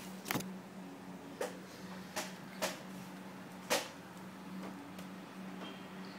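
Five sharp clicks at uneven spacing over a steady low hum, from hands handling a Sony Vaio laptop.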